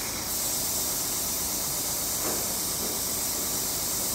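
Steady high hiss with no clear source; it grows slightly louder just after the start, and something faint and brief passes about two seconds in.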